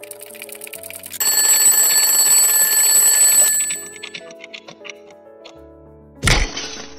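Alarm clock sound effect over soft background music: fast ticking, then about a second in a bell alarm rings loudly for about two seconds and stops. A short, loud swoosh-like transition sound comes near the end.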